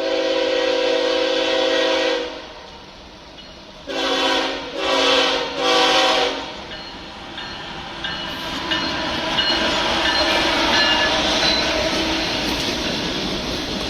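Diesel freight locomotive air horn: one long blast cut off about two seconds in, then three short blasts in quick succession. After that the train passes close by, a steady rumble with scattered clicks of wheels over rail joints.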